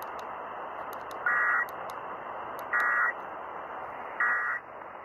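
Emergency Alert System end-of-message (EOM) data tones heard over AM radio: three short, buzzy digital squawks about a second and a half apart, over steady broadcast hiss, signalling the end of the alert. The end of the EOM sounds a little weird.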